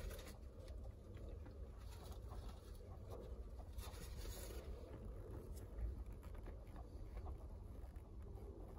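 Quiet car footwell: a low steady rumble with a few faint scuffs and rustles as leather loafers shift on the rubber floor mat.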